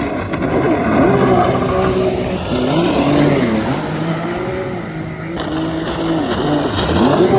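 Stand-up jet ski's two-stroke engine revving up and down under throttle several times, its pitch rising and falling as the rider works the throttle.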